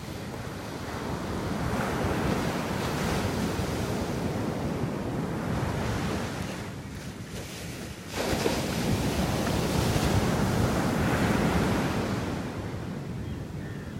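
Small sea waves breaking and washing up a sandy beach, the rush swelling and easing, with a fresh break coming in suddenly about eight seconds in.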